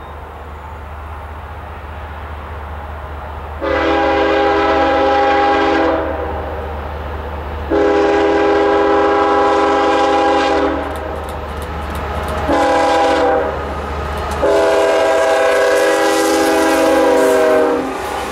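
Norfolk Southern diesel freight locomotive's multi-chime air horn sounding the grade-crossing signal: long, long, short, long, the last blast cutting off as the locomotive passes close by. A low diesel rumble runs under the horn as the train approaches.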